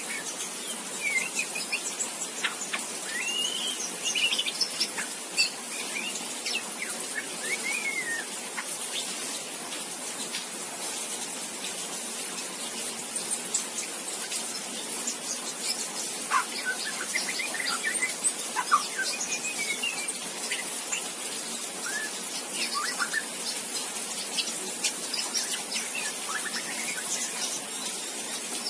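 Juvenile white-rumped shama (murai batu) practising its early song ('ngriwik'): soft, irregular short chirps and brief rising and falling whistled notes, scattered and unformed, as a young bird of about two and a half months just learning to sing. A steady high hiss lies beneath.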